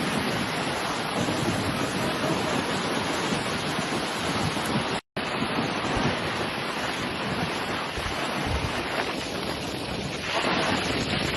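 Strong storm wind blowing and buffeting the microphone as a steady, dense rush, cut off by a brief dropout about five seconds in.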